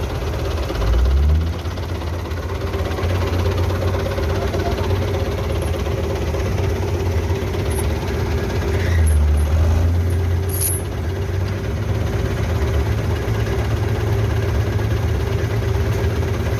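Belarus 510 tractor's diesel engine idling steadily. It swells louder briefly about a second in and again about halfway through, and there is one sharp click just after the second swell.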